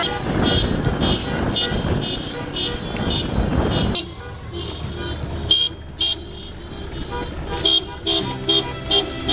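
Sharp rhythmic beats about two a second over a low vehicle rumble, with car horn toots. The rumble stops about four seconds in, and a pitched melody comes in near the end.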